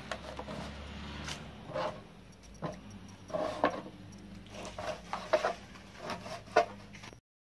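A kitchen knife cutting crisp, papery layers of msemmen on a cutting board: irregular taps of the blade on the board, with rustling of the dry pastry as it is pulled apart by hand. The sound cuts off suddenly near the end.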